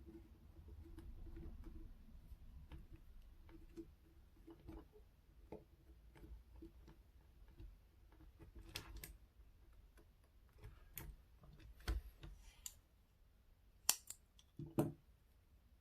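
Scissors snipping small pieces of rubber: scattered quiet clicks and cuts, with a few sharper snips in the second half.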